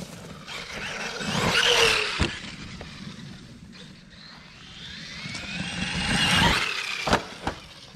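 Traxxas Maxx RC monster truck's brushless electric motor whining up in pitch and back down twice as it is driven hard, with a few sharp knocks, one about two seconds in and two near the end.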